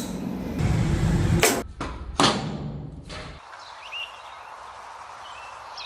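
A loud low rumble, then two sharp impacts about 0.7 s apart. After that the rumble cuts off, leaving a quieter background with a few faint bird chirps.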